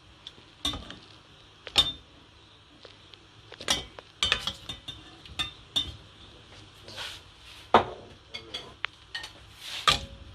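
Cooking utensils clattering against pots and dishes: irregular sharp clinks and knocks, roughly one every second or so, over a faint steady hiss.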